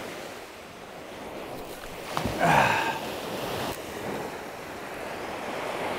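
Small surf waves washing steadily onto a sandy beach, with wind on the microphone. About two seconds in comes a brief, louder whoosh.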